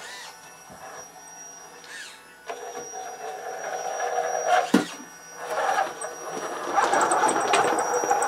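Small electric motors whining: the Actuonix L16-R miniature linear actuator lowers the toy dump truck's bed, steadily from about two and a half seconds in, with a sharp click near the middle. From a little later the truck's electric drive motor and gears whir as it drives off.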